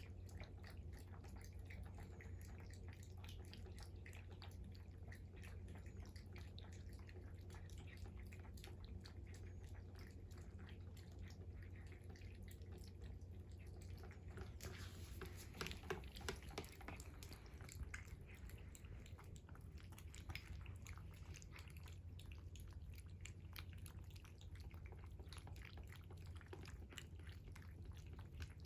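House cat eating its breakfast: faint, rapid chewing and clicking of food in its mouth, a little louder for a couple of seconds about halfway through, over a low steady hum.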